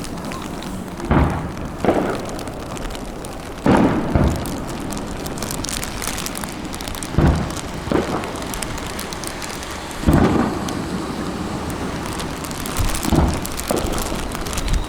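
Fireworks shells bursting in deep booms, about nine of them and several in quick pairs, over steady crackling between the bursts.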